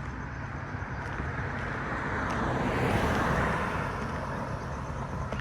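A vehicle passing by on the road: a noisy swell that builds to its loudest about three seconds in and fades away, over a steady low rumble.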